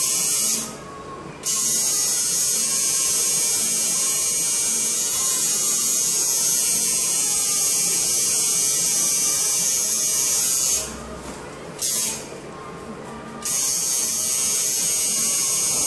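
A small handheld electric device buzzing steadily, cutting out for about a second three times: just after the start and twice between about eleven and thirteen seconds in.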